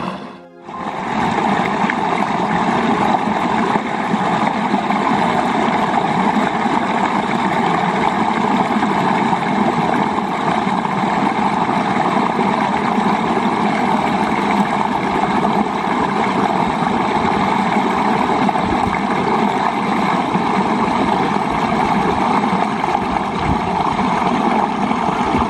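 Water rushing steadily in a small muddy stream, a constant even noise that drops out briefly just after the start.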